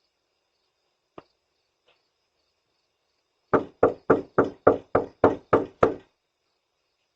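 A fast run of nine loud knocks on a front door, about four a second, after one faint click about a second in.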